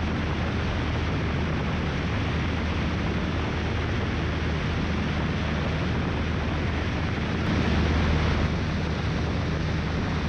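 Cessna 172 light aircraft in flight: the piston engine and two-blade propeller drone steadily, mixed with a heavy rush of wind on an outside microphone, briefly swelling louder near the end.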